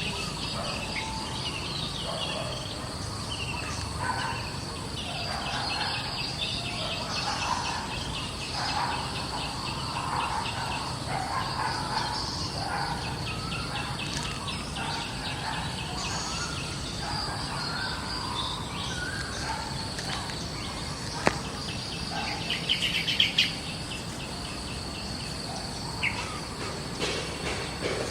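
Outdoor forest ambience: insects buzz steadily at a high pitch with rows of rapid pulses, while birds chirp and call now and then. A sharp click comes about three-quarters of the way through, followed soon after by a short, louder burst of rapid chirping pulses.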